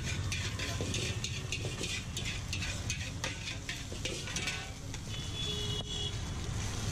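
Metal spatula scraping and clinking against a large iron wok as chicken and shredded cabbage are stir-fried, with a light sizzle, over a steady low rumble. The strokes come thick and fast for the first four seconds or so, then thin out.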